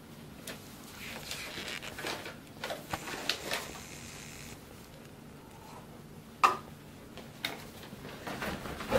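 Loose paper sheets being handled and rustled, with scattered light knocks and one sharp knock about six and a half seconds in.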